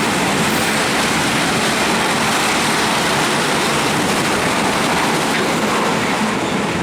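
Freight train rolling past on the track: a steady, loud rumble and rattle of wheels on rail, with no horn.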